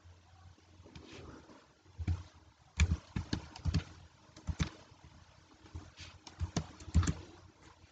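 Keystrokes on a computer keyboard: a handful of separate key taps as a short number is typed and Enter pressed, then after a pause of about a second a few more taps.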